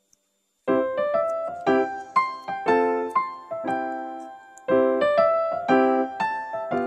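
Background music: a light piano tune of struck notes, each ringing and fading, coming in suddenly about half a second in after a short silence.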